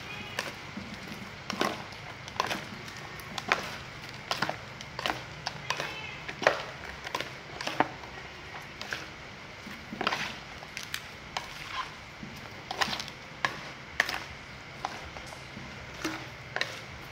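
Shredded cucumber, tomato and cabbage salad being tossed by hand and a metal spoon in a plastic bowl: irregular clicks and knocks, about one or two a second.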